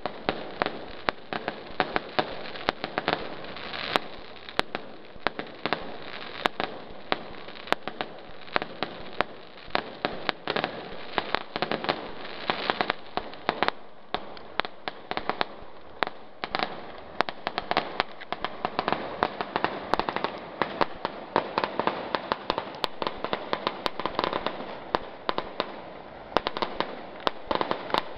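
Aerial fireworks going off in quick succession: a continuous crackle of small pops, with sharper bangs several times a second.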